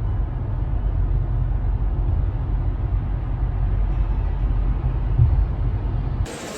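Steady low rumble of a vehicle in motion, which cuts off suddenly a little over six seconds in.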